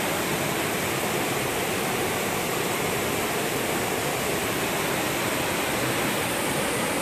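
Steady rush of river rapids, an even unbroken noise.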